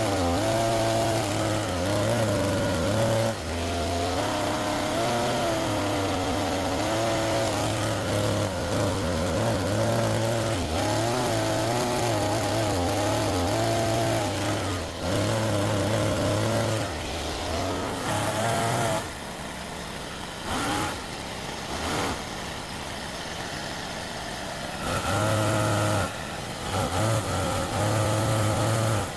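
Homemade RC excavator running, its motors whining with a pitch that wavers up and down as the arm works under load over a steady low hum. The machine sound drops much quieter for several seconds about two-thirds through, then picks up again.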